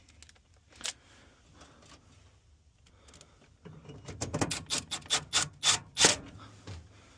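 Hand work on a gas valve fitting: a single click, then a quick run of about eight sharp metallic clicks and scrapes, roughly three a second and getting louder, as the part is worked into place.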